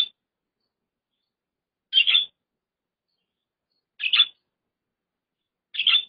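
Budgerigar giving short, high calls, one about every two seconds, with silence between them.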